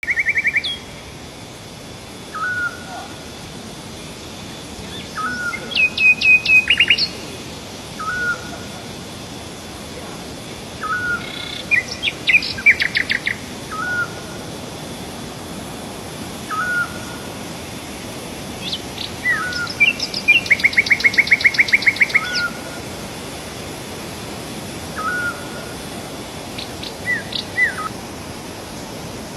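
Wild birds singing: a short, rising call repeats every two to three seconds, broken by louder bursts of rapid trilled song, over a steady background hiss.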